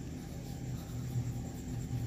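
Steady low background rumble, with faint scratching of a pencil writing on paper.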